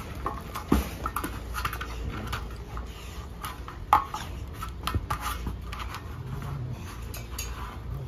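Dogs playing with a large toy ball, pawing, mouthing and pushing it over dirt: irregular light knocks and scuffs with one sharper knock about four seconds in, over a faint low rumble.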